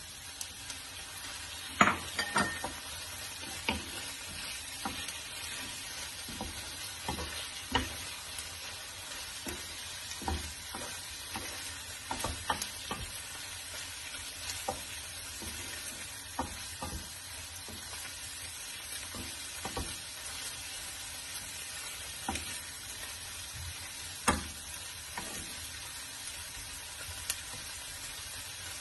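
Salmon cubes and onion sizzling in a non-stick frying pan while a wooden spatula stirs them, with a steady frying hiss and irregular knocks and scrapes of the spatula against the pan; the sharpest knocks come about two seconds in and again late on.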